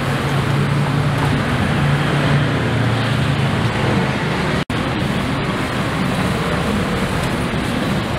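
Steady street noise of passing traffic with a low steady hum underneath. It cuts out completely for a split second about halfway through.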